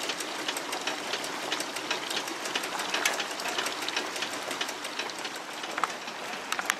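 Water-driven automaton mechanism clattering: rapid, irregular clicks and clacks over a steady rushing noise.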